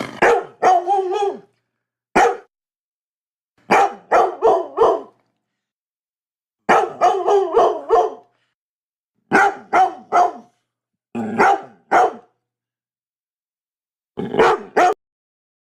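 A dog barking in repeated bursts of two to five quick barks, with pauses of one to two seconds of silence between bursts.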